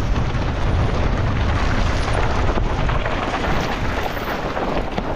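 Mountain bike descending fast over rough ground in a race, its tyres and frame rattling over a constant low rumble of wind buffeting the microphone.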